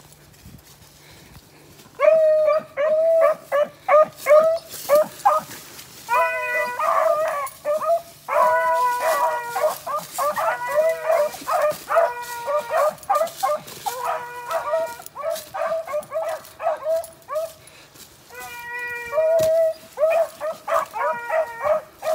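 A pack of beagles giving tongue while trailing a rabbit: rapid, overlapping barks mixed with longer drawn-out bawls. The baying starts about two seconds in and runs on, with a brief pause about eighteen seconds in.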